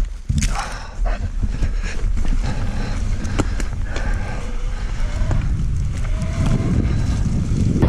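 Electric mountain bike being ridden over a snowy dirt trail, heard from a bar-mounted camera: a steady low rumble of tyres and wind on the microphone, with a constant patter of clicks and knocks from the bike rattling over the bumps.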